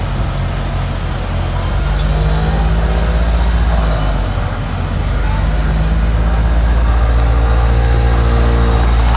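Heavy earthmoving machine's diesel engine running with a deep, steady drone, getting louder about two seconds in, easing briefly, then working up louder again from about halfway through.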